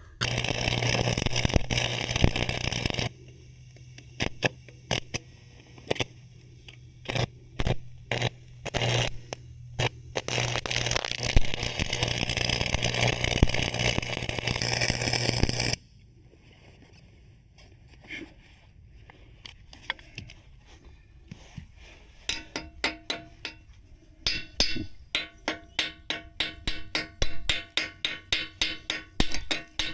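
Stick (arc) welding with 7018 rods: the arc crackles and hisses over the welder's steady hum, running for about three seconds, then in short stop-start bursts, then steadily for about five seconds before stopping. Near the end come quick ringing metal taps, about three a second, like a chipping hammer knocking slag off the weld.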